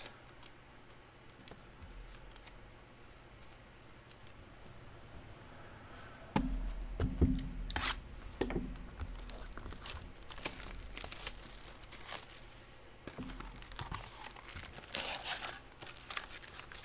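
Trading-card pack wrappers being torn open and crinkled, in short crackly bursts. It starts about six seconds in with a low thump, after a quiet stretch.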